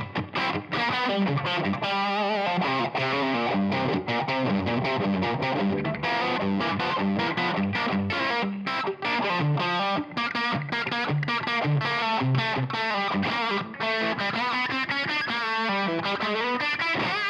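Distorted electric guitar played through a Line 6 Helix modelling the Brit Plexi Bright amp, with the preset's big-room reverb switched on: a continuous run of quickly picked notes.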